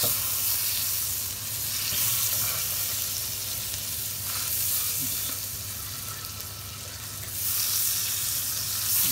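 Butter melting and sizzling in a hot stainless-steel frying pan, pushed around with a silicone spatula. The hiss eases a little partway through and swells again near the end.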